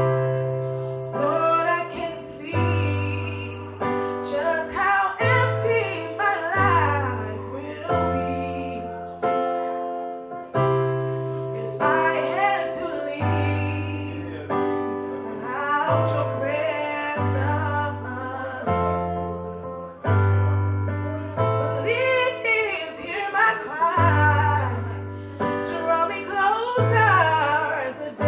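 A woman singing a melismatic, ornamented line over keyboard accompaniment, with held chords and a bass note that changes every second or two.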